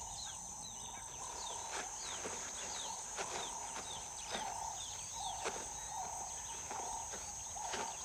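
Bush ambience: a steady high insect drone with many short, falling bird chirps, and scattered sharp snaps and knocks.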